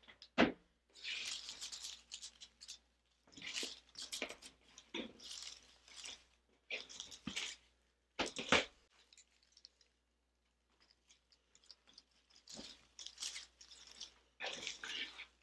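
Artificial foliage and berry stems rustling and crinkling against the grapevine in short bursts as they are worked into the wreath, with a sharp snip of hand cutters through a stem about eight seconds in.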